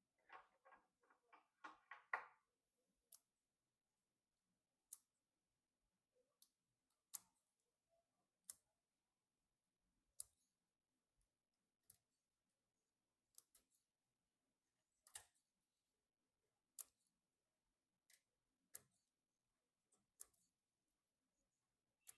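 Faint, sharp clicks and taps of small hardware being handled: a quick rattling run of about eight clicks at the start, then single clicks every one to two seconds.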